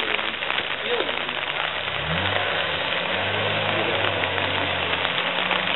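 Four-wheel-drive competition vehicle's engine revs up about two seconds in, then runs at steady revs as it crawls down the slope. A constant rushing hiss of water noise lies under it.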